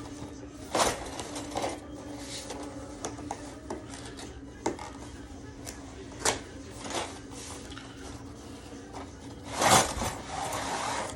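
Plastic silhouette goose decoys and their stakes being handled and set down: scattered knocks and clicks, with a louder clatter near the end, over a steady low hum.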